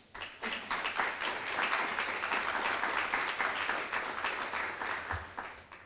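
Audience applauding, the clapping picking up within the first second and dying away near the end.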